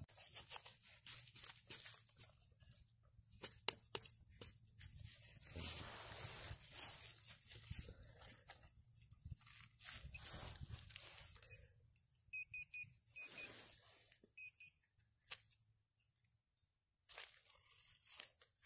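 Digging into grass turf with a hand digger and gloved hands: soil crunching and grass roots tearing in irregular scrapes and knocks. Twice, a little past the middle, there are short runs of high electronic beeps.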